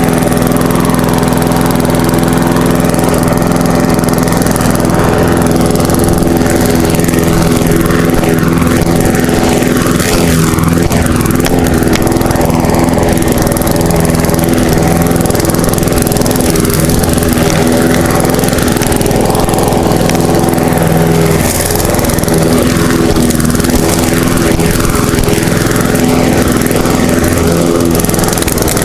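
Lawn mower engine running steadily at a constant speed, close to the microphone.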